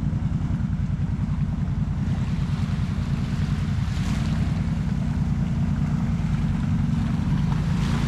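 Off-road vehicle engine running steadily under load while driving through deep floodwater in a trail dip, with water splashing and sloshing around it.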